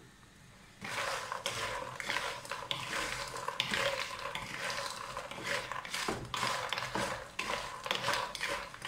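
Wooden spatula stirring crisp fried dough pieces (kadu mudu) in a nonstick pan: a dense rattle and scrape of the pieces knocking against each other and the pan, starting about a second in. The pieces are being tossed to coat them in thickened sugar syrup.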